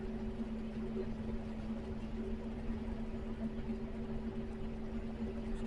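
Truck engine running steadily under way, heard from inside the cab as a constant-pitch drone with road noise beneath it.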